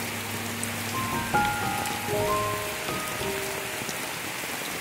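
Heavy rain pouring steadily onto a street, an even hiss, with soft sustained music notes laid over it.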